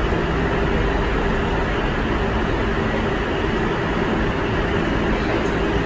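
New York City subway 7 train running in the station: a steady rumble with a low hum.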